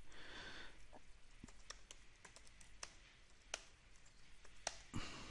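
Computer keyboard typing: faint, irregular keystrokes with a few sharper clicks.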